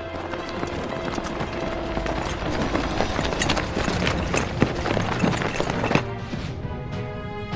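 A group of soldiers running, a dense patter of footfalls and rattling gear over background music with held notes; the footsteps stop about six seconds in.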